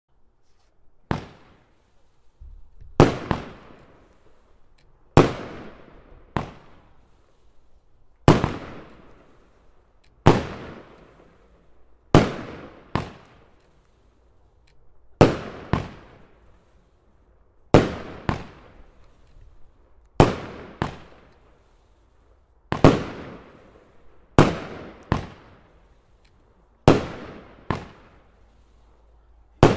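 A 13-shot consumer fireworks battery firing its shells one after another, a new shot about every two seconds. Each shot is heard as two sharp bangs close together: the shell launching from its tube, then bursting overhead with a loud report, each bang fading quickly.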